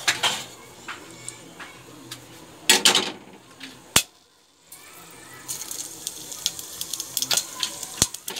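Whole spices (cardamom pods and cloves, then cumin seeds) sizzling and crackling in hot oil in a stainless steel pot, with a few knocks and clinks around three seconds in. The crackling hiss builds over the second half as the cumin goes in.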